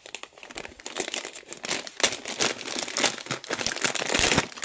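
Crinkling and crackling of thin plastic being handled, a dense, irregular run of small crackles.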